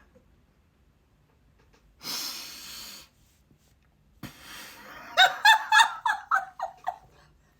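Fit of helpless laughter: a long silent stretch, a sharp wheezing gasp for breath about two seconds in, then a quick run of high-pitched laughs near the end.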